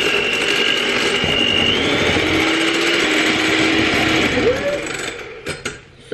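Electric hand mixer running steadily with a motor whine, its beaters churning cream in a jug to make butter. It winds down near the end, followed by a few clicks.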